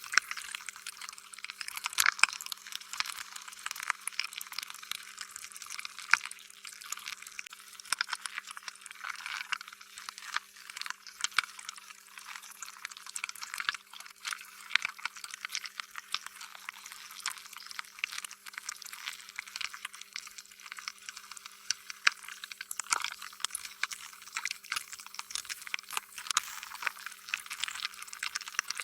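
Slime being squished and worked: a continuous run of small wet, sticky clicks and pops, with now and then a louder squelch.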